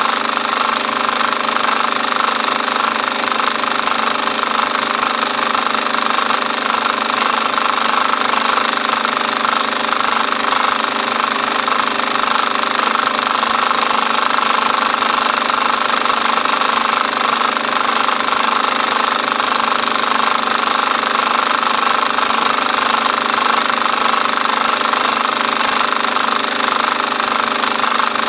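Film projector running steadily, its mechanism giving a continuous, unchanging mechanical clatter.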